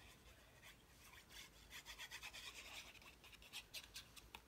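Faint rubbing of a liquid-glue bottle's tip drawn over cardstock: a run of quick, light scrapes, picking up about a second and a half in.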